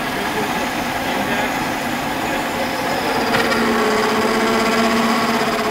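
Brown & Sharpe automatic screw machine running: a steady mechanical whir and clatter as it cuts bar stock. About three seconds in, a steady pitched whine joins it.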